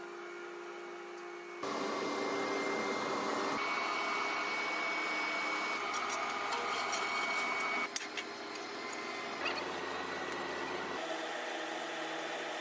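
PVC pipe extrusion machinery running: a steady mechanical hum and whirr with several steady tones, plus a few light clicks and rattles. The sound changes abruptly several times between different machine noises.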